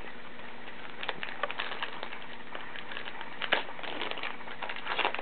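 Crinkling and crackling of a baseball-card pack wrapper being torn open, with the cards handled and shuffled: a run of small irregular clicks and rustles starting about a second in.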